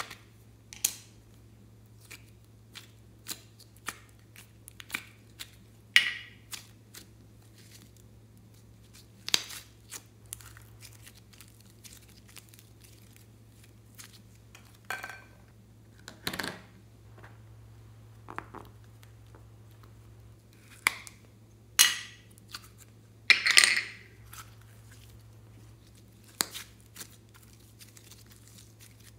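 Hands handling soft modelling clay and its plastic container: scattered small clicks and taps, with a few longer sticky, crackly squishes as the clay is pressed and kneaded, over a faint steady low hum.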